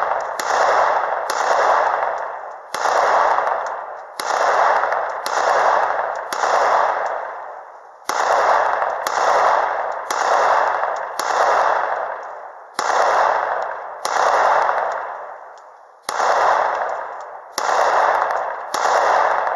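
Glock 19 9mm pistol firing a steady string of shots, roughly one every three-quarters of a second, with a few short pauses between groups. Each shot trails off in a ringing echo.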